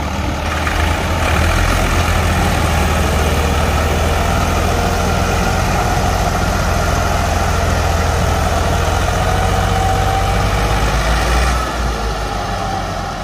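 Diesel engines of a Massey Ferguson 260 and a second tractor working hard under heavy load, the 260 towing the other tractor and its loaded trailer on a chain. Loud and steady, easing off about a second and a half before the end.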